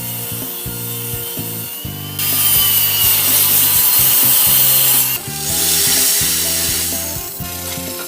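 A power tool working wood, quieter at first, then loud from about two seconds in, with a short break near five seconds before a second long pass. Background music plays underneath.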